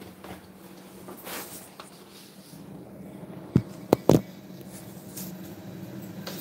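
Three sharp clinks close together, about three and a half seconds in, from a steel kitchen container being handled, over a steady low hum.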